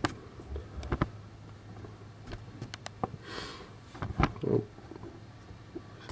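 Handling noise: a few scattered light knocks and clicks, with a brief rustle about three seconds in, as things are moved about and set down on a workbench.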